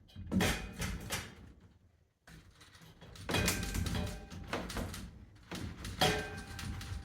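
Single-wall sheet-metal stovepipe knocking and clanking as sections are worked together, the harder knocks ringing briefly, loudest about six seconds in.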